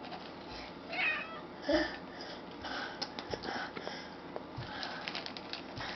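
Domestic cats meowing for food: two short meows about one and two seconds in, followed by faint taps and shuffling.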